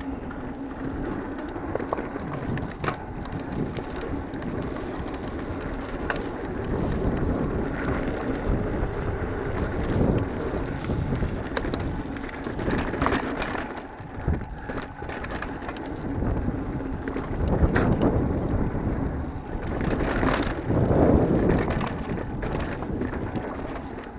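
Mountain bike riding fast down a dirt singletrack: tyres rolling over dirt and rocks with wind rushing on the microphone, and scattered clicks and knocks from the bike rattling over bumps.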